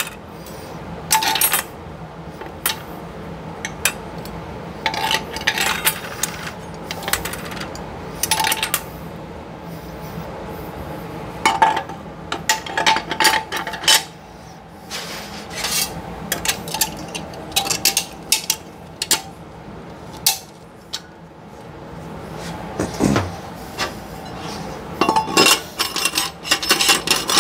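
Steel and friction plates of a Powerglide transmission's reverse clutch pack clinking and rattling against each other and the case as they are fitted in by hand: a run of irregular metallic clinks with short pauses between them.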